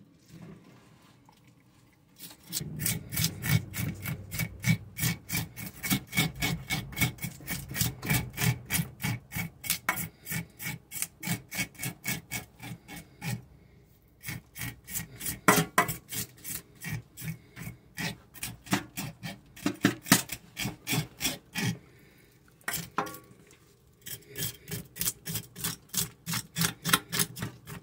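Scales being scraped off a striped bass with a metal scraper: quick rasping strokes, about four a second, in several runs with short pauses between them.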